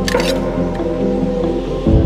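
Background music with held, overlapping notes, and a brief hiss just after it begins.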